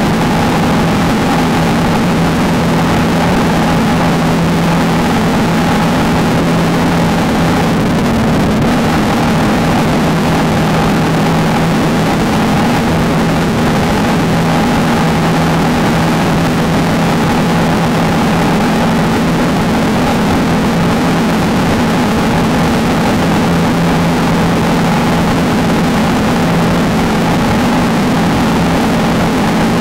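Off-road desert race car engine running hard at a nearly constant pitch, with a steady rush of wind and terrain noise over it.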